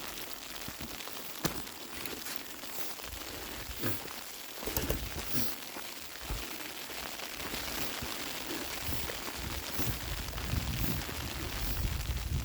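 Snow falling: a steady soft hiss with scattered small ticks and crackles as flakes land. From about four and a half seconds in, low rumbling buffets come and go and grow stronger toward the end.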